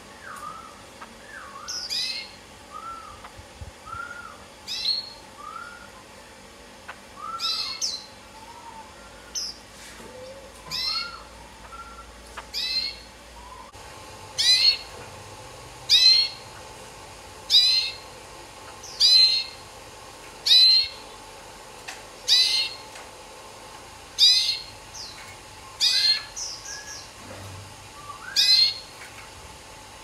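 Caged songbirds calling. For the first half, short arching whistles mix with higher sharp chirps; from about halfway, loud sharp high chirps repeat about every second and a half.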